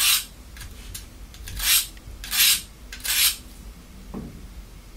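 Steel knife blade (Spyderco Paramilitary 2) drawn across a diamond sharpening rod in four short rasping strokes, the first right at the start and three in quick succession about a second and a half later. The edge is being scraped on purpose to dull it.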